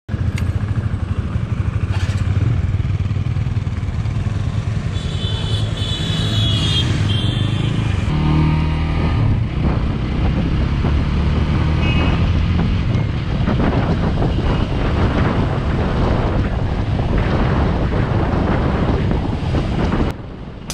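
Motorcycle engine running under way in city traffic, heard from an action camera on the bike with wind rushing over the microphone. A few brief higher tones sound in the middle.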